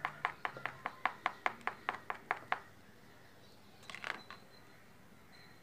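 Plastic spoon clicking against the side of a ceramic bowl while thickened liquid detergent is stirred, about four or five even clicks a second, stopping about two and a half seconds in. A brief, softer noise follows about four seconds in.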